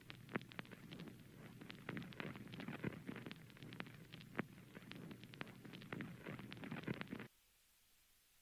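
Irregular crackling clicks over a low rumble, which cut off abruptly about seven seconds in.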